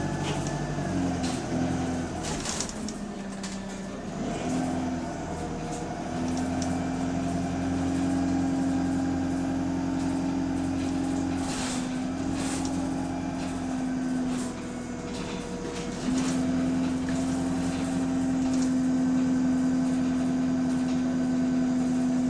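Bus engine running, heard from inside the cabin as a steady drone whose pitch steps up and down with speed. It eases off about two-thirds of the way through and picks up again a couple of seconds later, with a few sharp rattles along the way. The bus has an exhaust leak.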